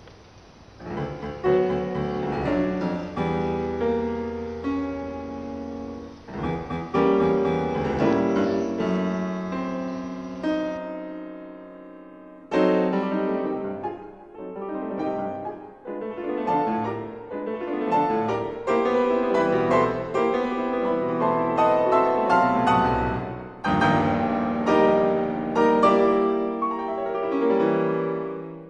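Background piano music, a melody of single notes and chords, with a break and a fresh start about twelve seconds in.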